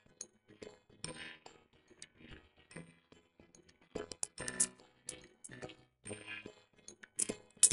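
Scattered light taps and knocks of dough and a wooden rolling pin on a wooden board as paratha dough is floured and rolled out, with faint background music.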